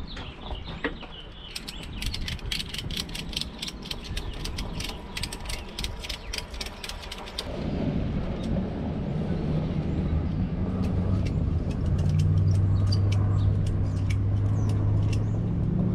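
Ratchet straps being cranked to lift a boat's rudder, their ratchets clicking rapidly. About halfway through, the clicking thins out and a low steady drone takes over.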